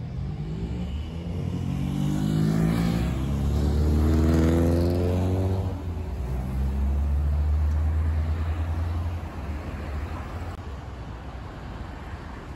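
Road traffic passing close by: a car accelerating past with its engine rising in pitch over a few seconds, then a lower steady engine hum that gives way to general traffic noise.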